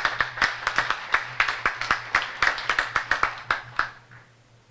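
Applause: many hands clapping, dying away about four seconds in.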